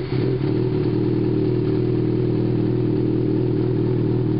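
2006 Yamaha FZ6's 600cc inline-four idling steadily through a Two Brothers aftermarket exhaust, having just started.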